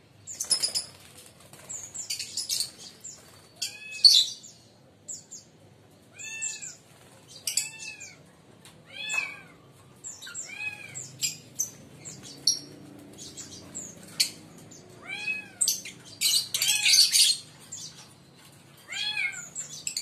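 Lovebirds calling and chattering: a short rising-and-falling call repeated every second or two, mixed with bursts of high, scratchy chatter.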